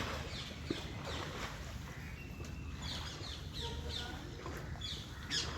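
Birds chirping: runs of short, quick falling notes, about three a second, over steady outdoor background noise.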